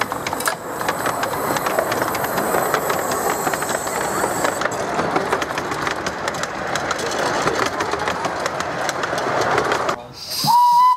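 Miniature steam railway carriages rolling past on the track, their wheels clicking rapidly over the rail joints above a steady rumble. Near the end a steam locomotive whistle sounds loud on one steady high note.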